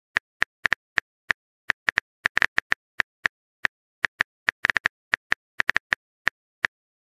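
Phone keyboard typing sound effect: irregular quick taps, a few per second, with a brief cluster of rapid taps at times, as the next chat message is typed out.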